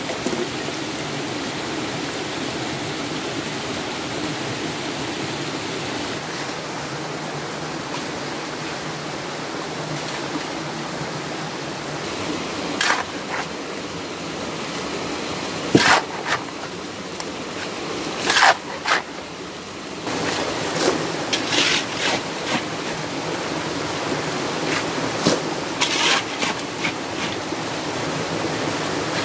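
Steady rushing of a small mountain stream cascading over rocks, with a few sharp knocks scattered through the second half.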